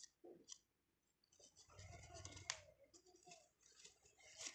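Faint crinkling and crackling of a paper envelope being handled, with a couple of sharper crackles, one in the middle and one near the end.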